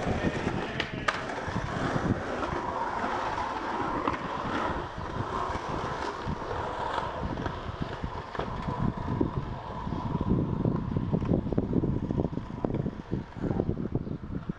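Skateboard wheels rolling over rough, cracked concrete with a steady rumbling grind, a couple of sharp clacks about a second in, and a rougher, more uneven rattle in the last few seconds.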